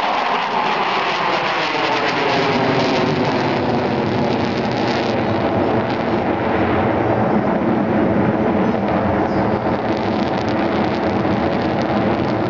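Jet noise of a four-ship formation of Su-27 fighters with AL-31F turbofan engines passing overhead. The pitch falls over the first few seconds as the jets go by, then a steady, loud rushing roar continues.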